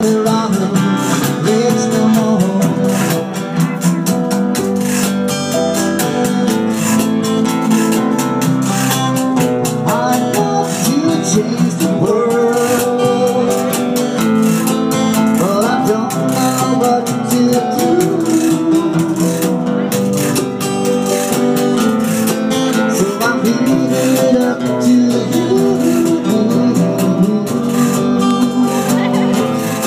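Live acoustic music from a small band, with strummed acoustic guitars and a melody line over them.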